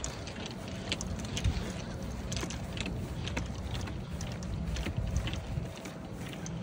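Footsteps on frosty grass and a three-wheeled golf push cart rolling, with clubs clinking in the bag in short irregular clicks, over a low wind rumble on the microphone.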